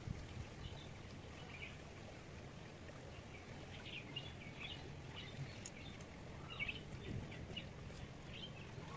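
Birds chirping in short, scattered calls over a faint, steady low rumble of outdoor background noise.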